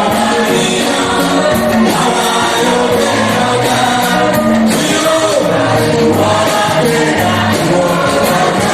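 Church choir singing gospel music in sustained chords over low instrumental notes.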